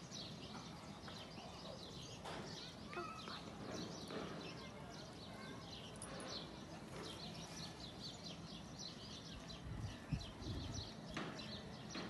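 Small birds chirping busily and continuously in short, high notes, with one sliding call about three seconds in. A few soft low thumps come about ten seconds in.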